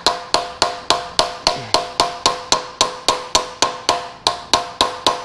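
Hammer blows on a steel striking-chisel pry bar, a fast even series of about four strikes a second, each with a short metallic ring.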